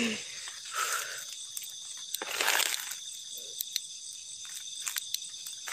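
A steady high-pitched chorus of crickets and other night insects, with scattered light clicks and a short rustle about two and a half seconds in.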